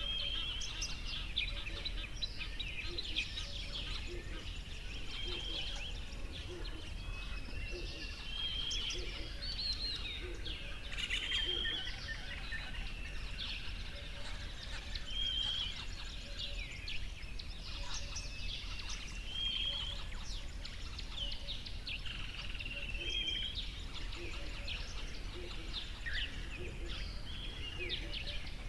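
Birds calling and chirping continuously in many short whistled notes, with a lower call repeating about once a second beneath them, over a steady low rumble of outdoor background noise.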